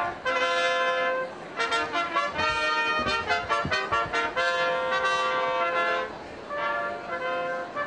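Brass music led by a trumpet: held notes, with a quick run of short notes in the middle.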